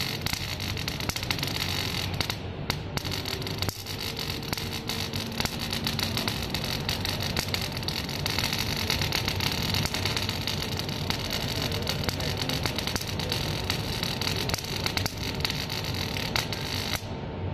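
Robotic MIG welding arc crackling steadily as it lays a weld; the arc cuts off near the end.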